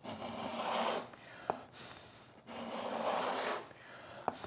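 Hand router plane cutting across the bottom of a dado in a wooden board, two rasping shaving strokes of about a second each, each followed by a sharp click as the plane is lifted or set down.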